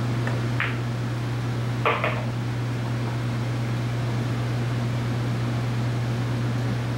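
A pool shot: a light tap of the cue tip on the cue ball, then a little over a second later a louder, sharp double clack from the billiard balls. A steady low hum runs underneath.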